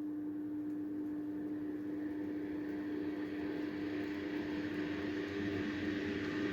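Custom soldering smoke extractor built from a Vevor HVAC fan, running with a steady electric hum and a rush of air. The rush grows louder from about halfway in.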